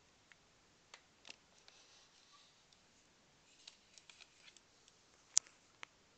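Giant African land snail rasping and crunching eggshell with its radula: faint, irregular little cracks and clicks, with one sharper crack about five seconds in.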